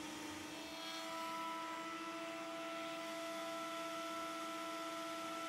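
A faint, steady hum made of several held tones, with a few higher tones joining about a second in.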